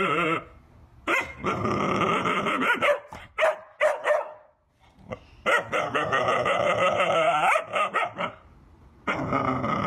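A dog barking and vocalizing in two long bouts of about two seconds each, with a few short calls between them and another bout starting near the end.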